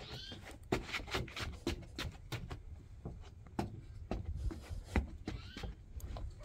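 Irregular light knocks and scuffs of rubber boots shifting and stepping on wooden deck boards, over a low rumble.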